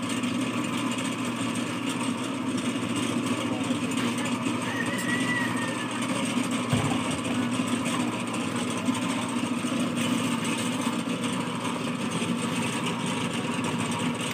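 Motorized coconut grater running steadily, its spinning grating head rasping coconut flesh from a shell held against it. A brief low thump about seven seconds in.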